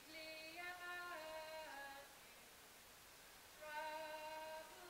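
A single voice singing a slow melody in held notes. It comes in two phrases, the notes stepping up and down, with a pause of about a second and a half between them.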